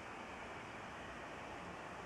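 Boeing 737-800's CFM56 jet engines heard from across the airfield as a steady, even rushing noise while the airliner taxis out for takeoff.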